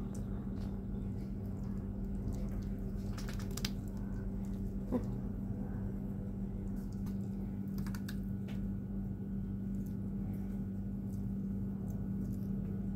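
Faint wet clicking and smacking from cats feeding, scattered irregularly over a steady low hum.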